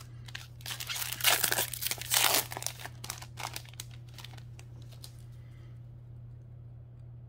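Foil wrapper of a Modern Horizons 2 collector booster pack crinkling and tearing open, loudest about a second and two seconds in, then lighter crinkles as the wrapper is handled.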